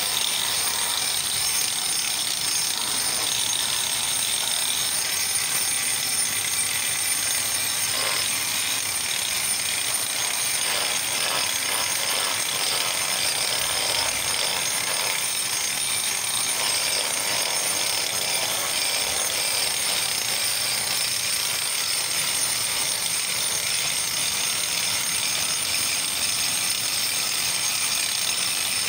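Electric angle grinder with a diamond cup wheel running steadily, the wheel grinding paint off a concrete wall: a high motor whine over the rasp of diamond segments on concrete.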